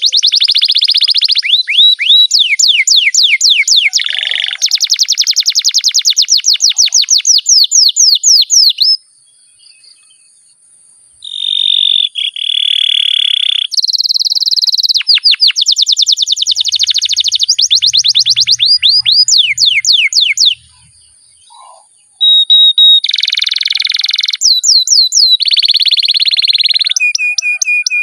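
Canary singing long, rapid rolls and trills of fast-repeated high notes, broken by two short pauses, about nine and twenty-one seconds in.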